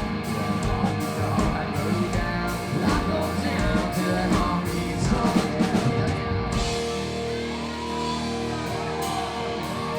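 Live country band playing: electric guitars, bass and drum kit. About two-thirds of the way through the drums stop and a held chord rings on.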